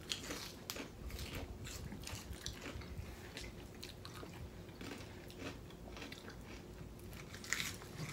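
Close-up mouth sounds of people chewing and biting crisp food, lettuce-wrap burgers and tortilla chips, heard as a run of small, scattered crunches.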